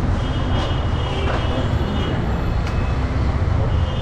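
Steady low rumble of busy street traffic, with a couple of light knocks of a butcher's knife on a wooden chopping block.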